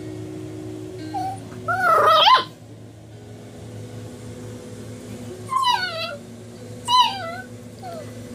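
English cream golden retriever puppy whining and yipping: a loud burst of high, wavering whines about two seconds in, then two shorter whimpers falling in pitch around six and seven seconds.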